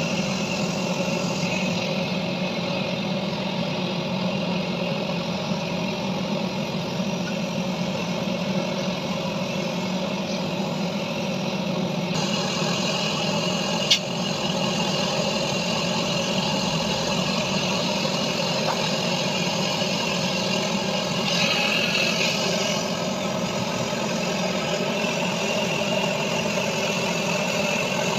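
A machine running steadily with an engine-like drone, with one sharp click about halfway through.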